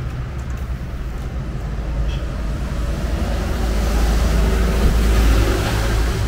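Road traffic rumbling past, growing louder as a small box truck drives by a few seconds in.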